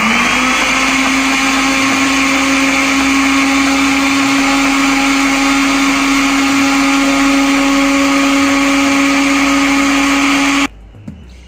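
Electric countertop blender motor running, grinding cooked mushroom sauce into a thin paste. It spins up quickly at the start, holds a steady whine, and cuts off suddenly near the end.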